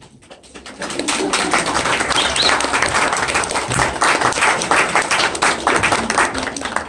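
Small audience clapping by hand, starting about a second in and running steadily at a lively pace.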